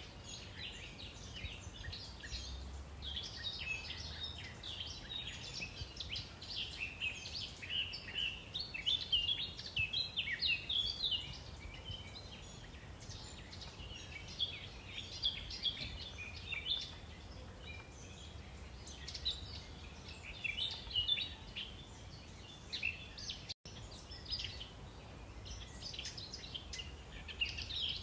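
Small birds chirping and twittering, many short high calls overlapping, over a low steady background rumble. The sound drops out for an instant about two-thirds of the way through.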